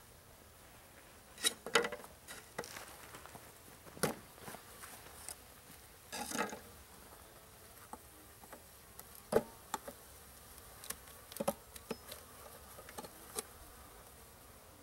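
Honey bees buzzing in and around an open bee package, with irregular sharp knocks and short scraping rustles from the package being handled.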